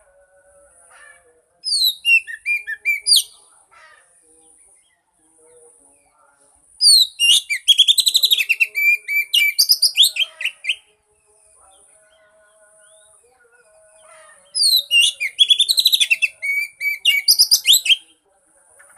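Oriental magpie-robin (kacer) singing: three loud bursts of fast, varied whistles and rapid trills, the first short and the second and third several seconds long, with pauses between them.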